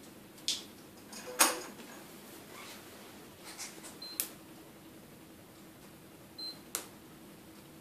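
IV infusion pump being programmed: keypad buttons clicking under a finger, with two short high beeps from the pump. The loudest sound is a sharp click about a second and a half in.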